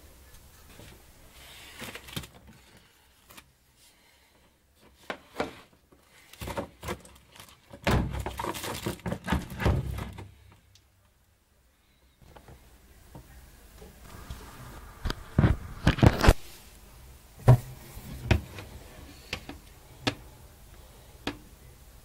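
A plastic tool case and an oscillating multitool being handled, with scattered knocks, clunks and rattles and no motor running. The handling gets busier twice, about a third of the way in and again about two thirds in, with the sharpest knocks in the second stretch.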